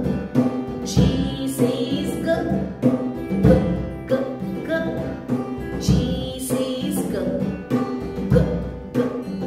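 Children's phonics song: music with a drum beat and a woman singing.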